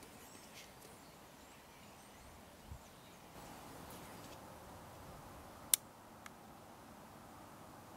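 A sharp click from the CVA Wolf .50 calibre muzzleloader being handled as it is readied to fire, followed by a much fainter click about half a second later. Before it there are a few faint bird chirps and a dull thump.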